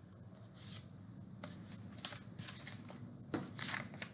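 Faint paper rustling and small handling clicks from a picture book being moved and its pages handled, a few separate rustles with the loudest near the end.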